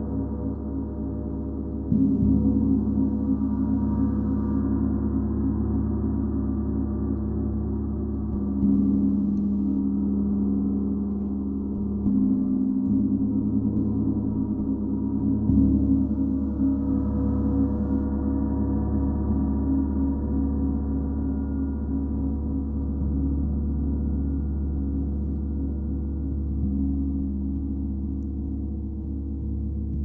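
A 32-inch Paiste Symphonic gong ringing in a continuous, sustained wash. It is struck softly again several times, each stroke swelling the deep hum.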